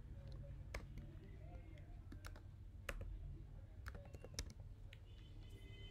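Faint typing on a computer keyboard: about ten separate key clicks at an uneven pace, over a faint low hum.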